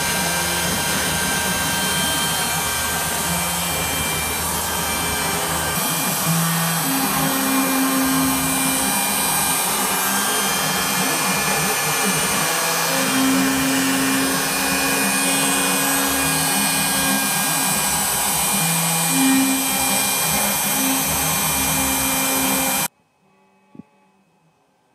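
CNC router spindle running and cutting into a wooden board, a steady dense whirring hiss with a hum that rises and falls in places as the cut goes on. It cuts off suddenly near the end.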